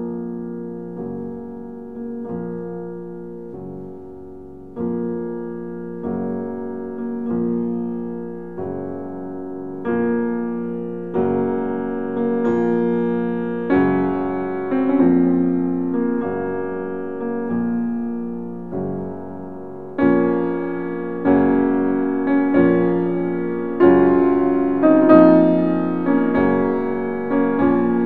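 Background piano music: slow chords struck about every second or so, each ringing and dying away before the next.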